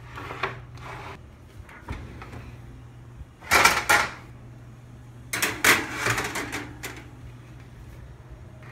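An oven door opened with a loud metallic clatter about three and a half seconds in, then a metal baking sheet slid onto the oven's wire rack with a second run of scraping and clanking, over a steady low hum.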